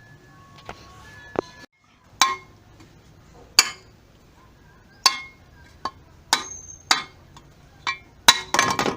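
Metal striking metal on a washing-machine transmission while a seal is being knocked out: sharp clinking blows with a short ring, about one a second, quickening into a rapid cluster near the end.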